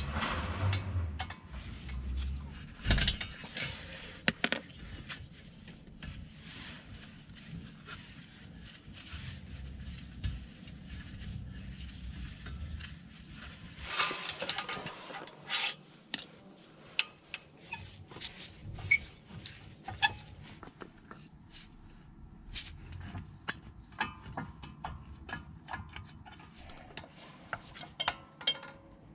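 Scattered metallic clicks, taps and scrapes of hand tools working on a car's front brake caliper: an Allen key on the caliper guide bolts, then a screwdriver levering the brake pad to push the caliper piston back.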